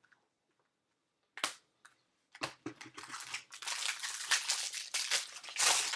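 The foil wrapper of a trading-card pack rustling and crinkling as it is torn open by hand, after a single light tap about a second and a half in.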